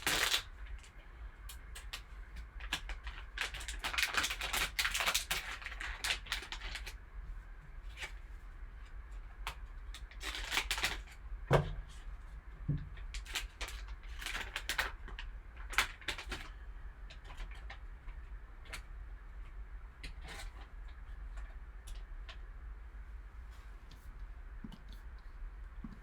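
Trading card packs being opened and handled by hand: the wrapper crinkles and tears in several short bursts of crackling, with two dull knocks near the middle. The handling is quieter in the second half.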